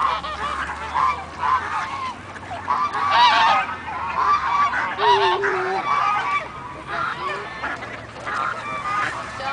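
A flock of domestic geese honking, many short calls in quick succession and overlapping.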